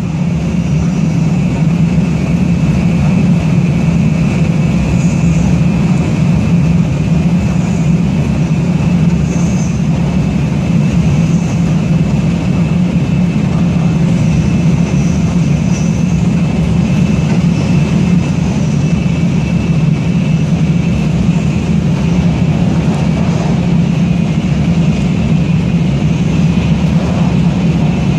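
Taiwan High Speed Rail 700T bullet train running at speed, heard inside the passenger cabin: a loud, steady low rumble with a faint steady high whine above it.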